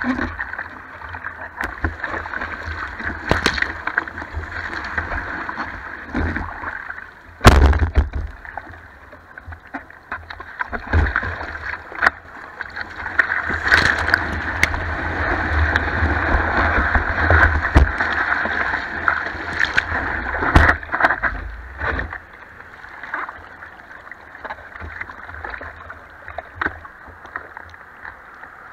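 Ocean whitewash rushing and splashing over a surfboard and the action camera mounted on its nose, with sharp knocks of water and knocks against the board, the loudest about seven seconds in. The rush swells as a broken wave washes over the board about halfway through, then settles to quieter lapping water near the end.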